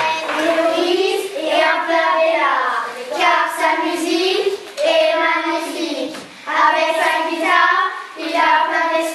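A group of children singing a song together, in short sung phrases with brief breaths between them.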